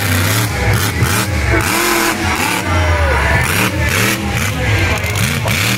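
Monster truck engine revving loudly, its pitch rising and falling several times as the truck drives the dirt arena.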